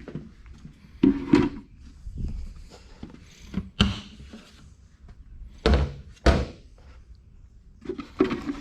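A string of separate thunks and knocks, with a pair about a second in, one near four seconds and a loud pair around six seconds: buckets and feed containers being moved and set down.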